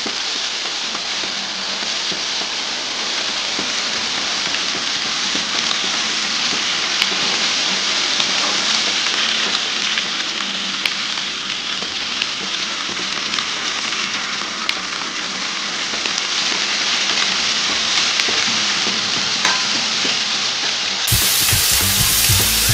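Bacon-wrapped enoki mushroom rolls sizzling steadily in an oiled grill pan, with an occasional pop of fat. A few low knocks come near the end.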